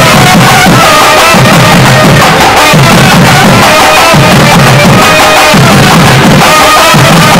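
Two nadaswaram double-reed pipes playing a melody together over a steady drum beat that pulses about every second and a half.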